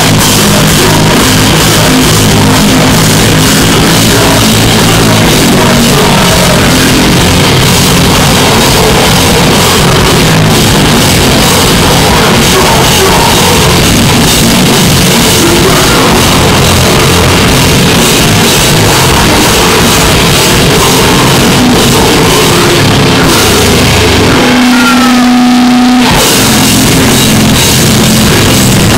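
Live metal/hardcore band playing very loud, with drum kit, distorted guitars and vocals. About 24 seconds in, the drums and low end drop out for roughly two seconds, leaving a single held note, then the full band comes back in.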